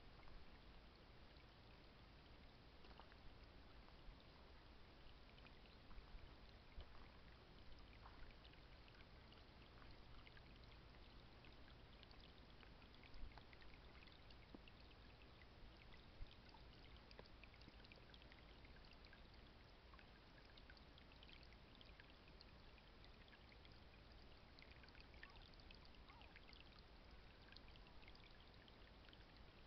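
Faint trickling of shallow water running among stones, a steady hiss with many small ticks.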